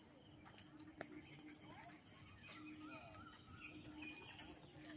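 Faint outdoor ambience: a steady high-pitched insect buzz, with faint scattered bird chirps and calls, mostly in the second half.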